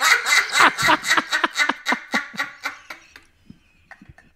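Two people laughing hard into close microphones, a run of rapid breathy bursts that fades away about three seconds in.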